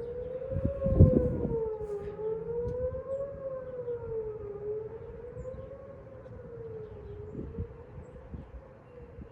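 Outdoor tornado warning sirens sounding a wail, the pitch rising and falling about every two and a half seconds. There is a brief low thud about a second in.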